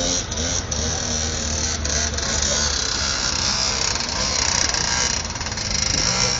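Small motorbike engine powering a ride-on cement mixer, buzzing steadily as it is driven.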